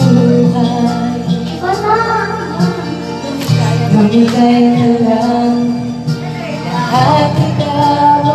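Karaoke: a girl singing into a microphone over a recorded backing track with a steady bass line.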